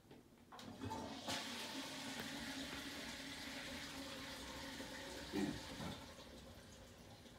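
Toilet flushing behind the closed toilet door: a rush of water that starts about a second in, then a long fading run of the tank refilling. Two brief low knocks a little after five seconds in, the loudest moments.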